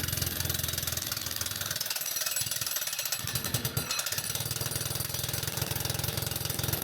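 Electric concrete breaker (demolition hammer) chiselling a concrete slab, its rapid hammering running on steadily; the low pounding thins out for about two seconds in the middle, then comes back at full strength.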